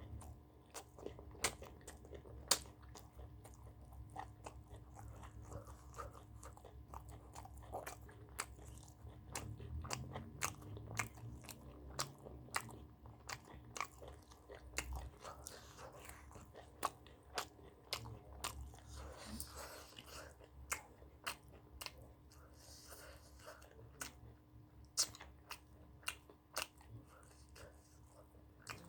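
Close-miked eating: wet chewing with many sharp, irregular crunching clicks, as pork belly and raw cheongyang chili peppers are bitten and chewed. A faint steady hum sits underneath.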